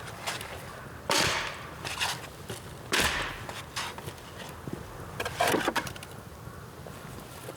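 Dry bamboo cracking sharply three times, about two seconds apart, with lighter crackles in between.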